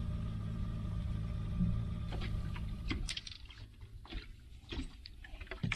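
Boat motor running at low speed with a steady hum, stopping about three seconds in. A few scattered clicks and knocks follow.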